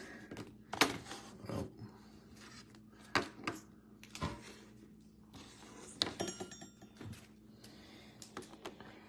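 Trading cards in hard plastic cases being handled and set into plastic brick stands: several sharp clicks and clacks, with soft handling noise between them.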